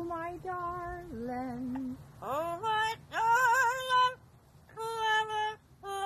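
Amazon parrot singing wordlessly in a human-like singing voice. It slides up into each phrase and then holds long notes, some with a wavering vibrato, with short pauses between phrases.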